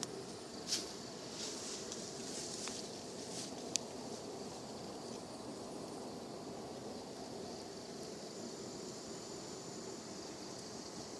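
Outdoor ambience of insects buzzing steadily, with a few short, sharp sounds in the first four seconds.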